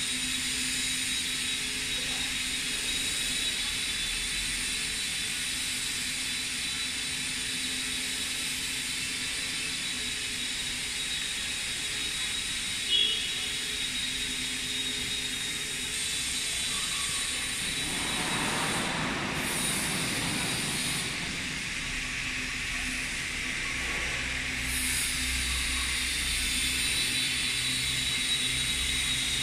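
Steady machine hum and hiss of a factory workshop hall, with a single sharp knock about halfway through and a louder rushing swell about two-thirds of the way through.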